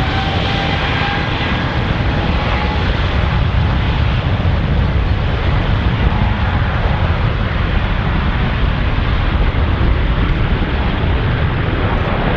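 Jet airliner engines: a loud, steady roar with a deep rumble. A faint whine rises slightly over the first couple of seconds and then fades into the roar.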